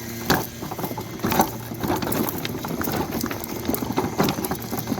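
Go-kart driving over rough ground: a steady motor hum under dense crackling and rattling from the wheels and chassis.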